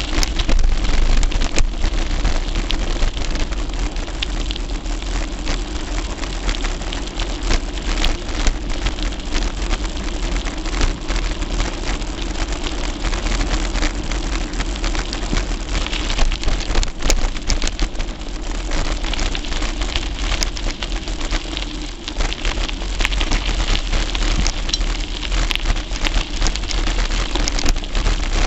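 Riding noise of a Gary Fisher Tassajara mountain bike picked up by a camera taped to its handlebars: a steady crackling rumble of tyres on the road and the mount vibrating, with many small clicks and rattles.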